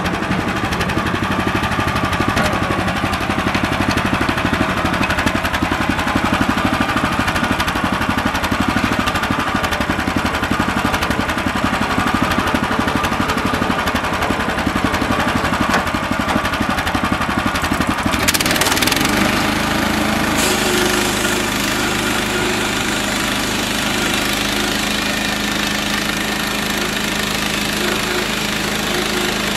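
Gas engine of a Central Machinery band sawmill running hard while the band blade cuts a pine log. About 18 seconds in there is a brief burst of noise, and the engine then settles into a steadier, even hum.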